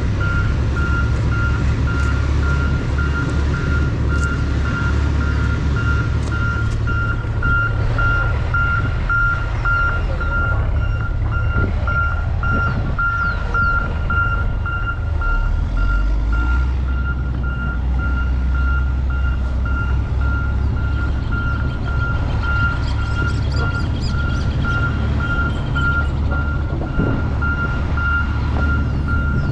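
A high, rapidly pulsing beep tone that keeps on without a break, over a constant low rumble.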